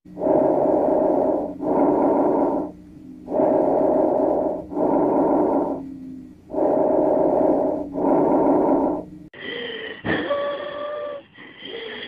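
Recorded bronchovesicular breath sounds: three breaths, each a rushing inspiration and expiration of about equal length with a short gap between the two phases. About nine seconds in, a different recording starts: asthmatic wheezes, several high musical tones held together.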